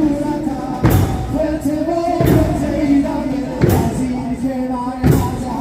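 Shia mourners singing a Muharram lament (noha) together, with a heavy crashing beat about every second and a half keeping the time of the chain-beating.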